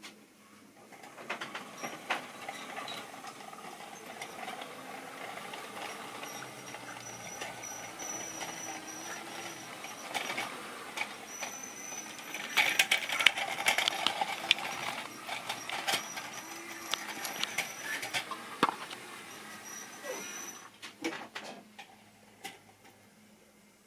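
Model railway train running on sectional track: a steady rattle of small wheels with many quick clicks and a thin high whine, loudest around the middle and stopping about twenty seconds in. A few clicks and knocks follow near the end as rolling stock is handled on the track.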